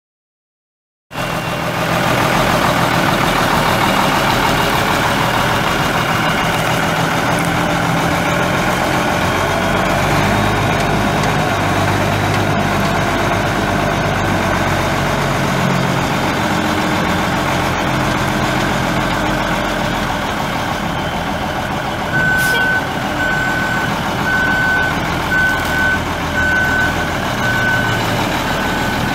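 Dump truck's Cummins 8.3-litre inline-six turbo diesel engine running steadily, starting about a second in. About three quarters of the way through, the truck's backup alarm starts beeping about once a second, the sign that the truck is in reverse.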